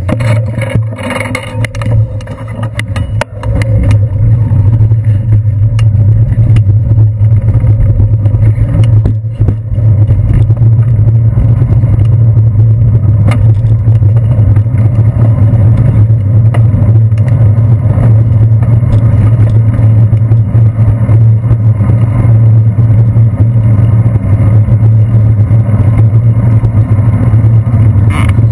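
Bicycle ride over wet city streets heard through a handlebar-mounted camera: a heavy, steady low rumble of road vibration and wind, with scattered knocks from bumps. It grows louder about three seconds in.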